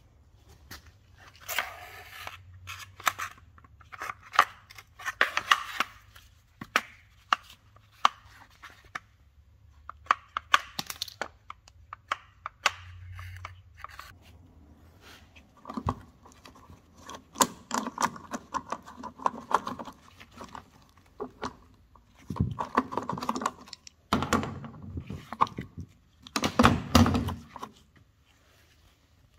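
Hand work on a car body: irregular tearing and scraping with sharp clicks and knocks, the loudest bursts near the end.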